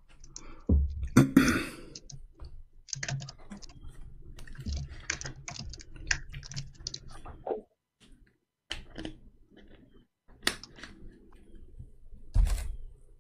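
Typing and clicking on a computer keyboard in quick, irregular runs of keystrokes, with a louder burst of noise about a second in and a few separate clicks near the end.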